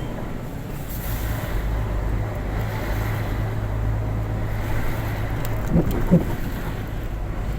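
Truck engine running steadily, a low even hum, with two short knocks a little under half a second apart about six seconds in.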